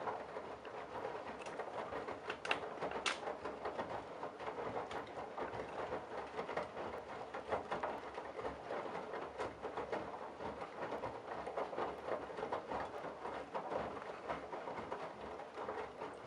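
Candy Bianca front-loading washing machine in the wash phase of a sudsy 60° towels cycle: the drum tumbling wet towels, with water sloshing and splashing and irregular light clicks.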